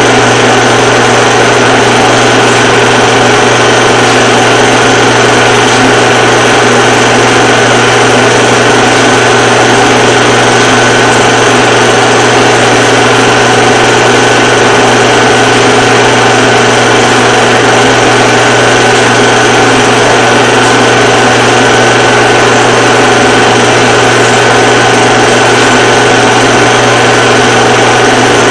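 A film projector running steadily, its motor giving a constant hum and a mechanical running noise that does not change.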